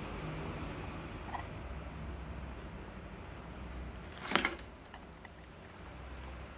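Hands handling packaging during an unboxing over a low steady hum: a faint click about a second in, then one short, sharp noise about four seconds in, the loudest sound.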